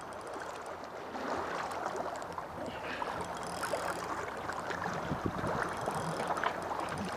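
Water lapping and sloshing with wind on the microphone: a steady hiss broken by small irregular splashes and clicks.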